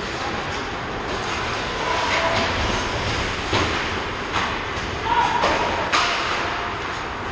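Ice hockey play close to the net: skates scraping and carving on the ice over a steady rink din, with several sharp clacks of sticks and puck, the loudest about five to six seconds in.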